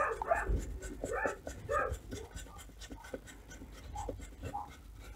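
Hand screwdriver driving self-tapping screws into a small speaker enclosure: a run of short scraping strokes, quieter and sparser after about two seconds, with small clicks.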